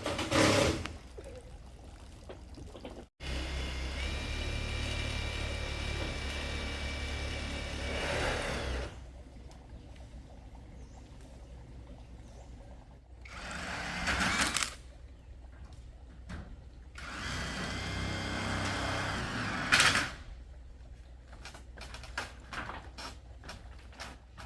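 A small electric power-tool motor runs steadily for several seconds twice, its pitch rising as it spins up and falling as it winds down. Short noisy bursts and knocks come in between.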